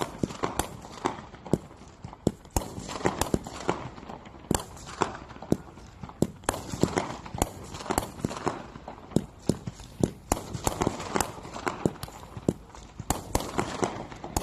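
Winda 'Fun Fuel' P5191 consumer firework going off: an irregular string of sharp pops and bangs, a few a second, over a steady crackling hiss.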